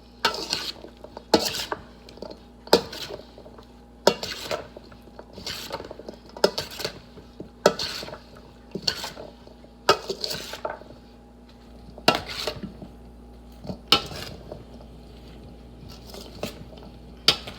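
A serving utensil stirring chicken salad in a bowl, knocking and scraping against the bowl's side with a sharp clack about once every second or so.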